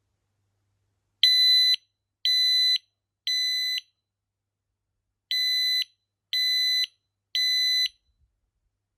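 FireAngel FA6620 optical smoke alarm sounding on a push-button test: high-pitched beeps in the code-3 (temporal-3) fire pattern, two groups of three half-second beeps with a longer pause between the groups, starting about a second in.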